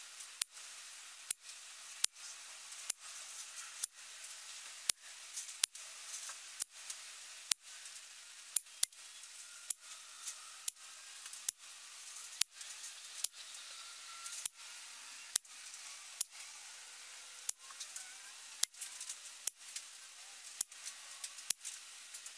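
A string of air rifle pellet shots at a card target, each a single sharp crack, about one a second, over a faint hiss.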